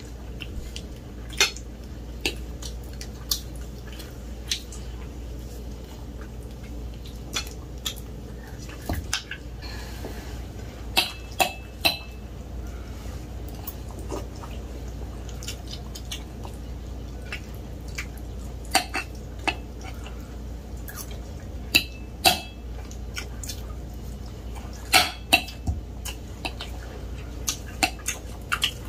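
Forks clinking and scraping on dinner plates while people eat, in scattered sharp taps and clicks, a few of which ring briefly.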